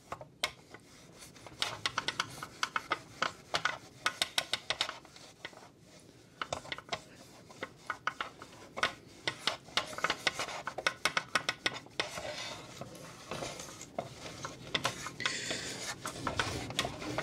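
Towel wetted with alcohol rubbed hard back and forth over a plastic headlight reflector, in runs of quick scratchy strokes, stripping off the chrome finish.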